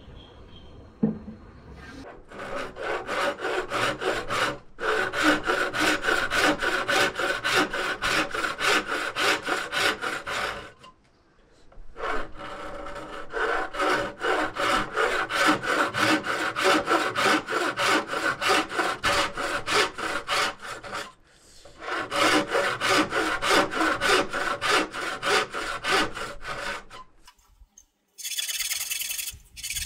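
Hand saw cutting through wood in quick, even back-and-forth strokes, in three long runs with short pauses between. Near the end a higher, finer rasping starts.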